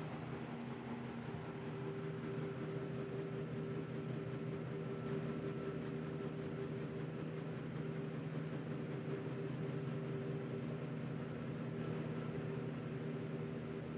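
A small electric motor running with a steady hum: a low drone with a fainter, higher steady tone above it.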